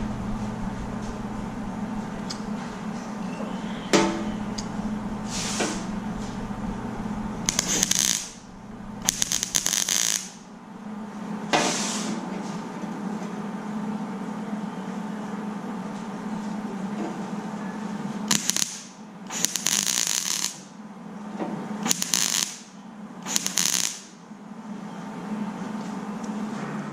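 MIG welder putting short tack welds along the edge of a sheet-steel dash patch panel: about eight separate bursts of arc noise, each a second or so long with pauses between, over a steady low hum.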